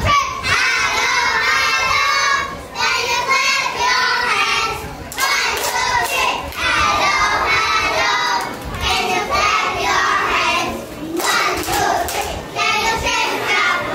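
A group of young children singing together into microphones, in short phrases with brief breaks between them.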